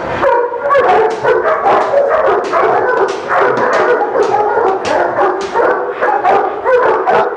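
Several dogs, German Shepherds among them, barking in a rapid, overlapping volley of about three or four barks a second. The dogs are worked up and aggressive.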